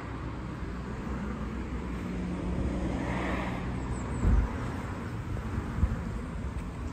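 Steady low rumble of motor vehicles, with a brief low thump about four seconds in and a smaller one near six seconds.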